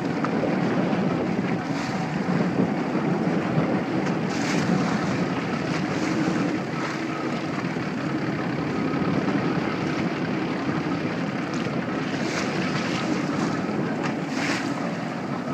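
Steady wind noise on the microphone and sea water lapping against a small boat's hull, with a few brief louder gusts.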